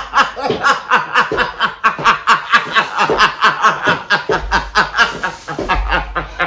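A woman laughing hard: an unbroken run of quick snickering laughs, about five a second.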